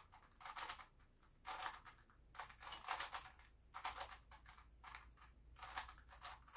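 Grilles II puzzle cube being turned by hand: faint, irregular bursts of clicking and clacking as its plastic layers rotate and catch, with short pauses between moves.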